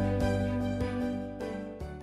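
Soft background music with sustained pitched notes, fading out toward the end.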